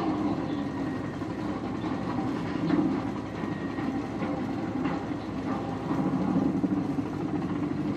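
CH-47 Chinook tandem-rotor helicopter in flight: its engines and rotors make a steady low drone that swells and eases slightly.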